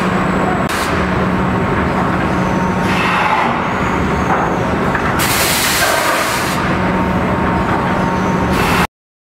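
Egg tray production line machinery running: a loud, steady mechanical hum with repeated sharp bursts of hiss, the longest lasting about a second. The sound cuts off abruptly near the end.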